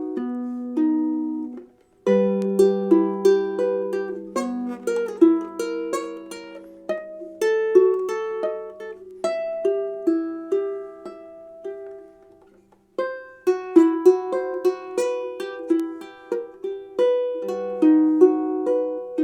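Tenor harp ukulele with a Sitka spruce top, played fingerstyle: plucked melody notes over a low bass note from the harp strings that rings on under them. The playing fades away and starts again twice, about two seconds in and about twelve seconds in.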